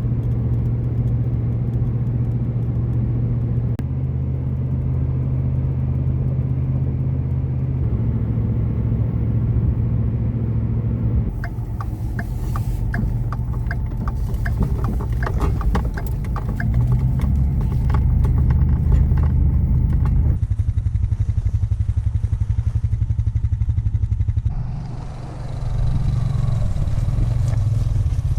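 A motor vehicle's engine running steadily, its pitch stepping up or down a few times. Rapid clicking and clatter run through the middle stretch, and the sound briefly drops near the end.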